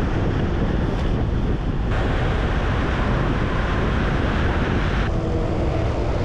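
Loud, steady wind rushing over a bike-mounted camera's microphone on a fast road-bike descent, with a low rumble of road noise beneath. The hiss brightens abruptly about two seconds in and drops back about five seconds in.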